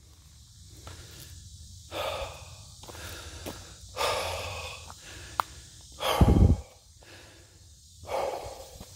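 Heavy, gasping breaths of a hiker, four big ones about two seconds apart, the loudest and deepest about six seconds in. The panting is put on as a joke about thin air on a very low summit.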